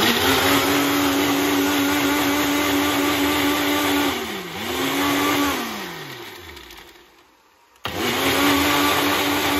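Ninja Professional personal blender motor running steadily as it blends a liquid mix. Its pitch dips briefly about four and a half seconds in, then it winds down to a stop around seven seconds in and starts up again about a second later.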